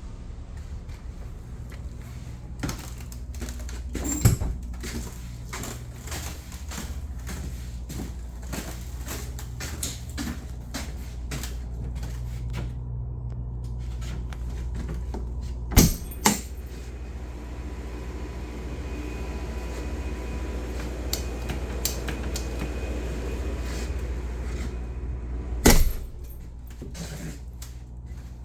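Clicking, rattling and knocking of a walk-in freezer door handle and latch being worked on and operated, with three loud bangs spread through, over a steady low machine hum.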